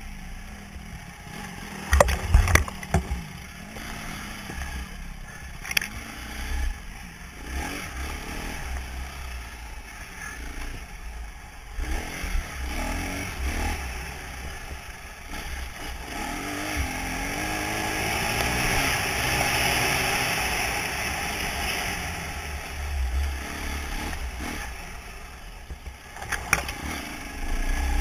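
Trail motorbike engine revving up and down while riding a rough dirt track, with clatter and a few sharp knocks from the bike over the ground, about two seconds in, near six seconds and near the end. The engine is loudest through a long rise in revs in the middle.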